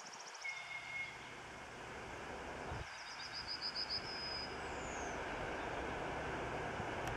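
TEP70 diesel locomotive with its 16-cylinder diesel engine approaching with a passenger train, a low, steady engine sound that grows gradually louder. Birds chirp over it, with a quick trill a few seconds in.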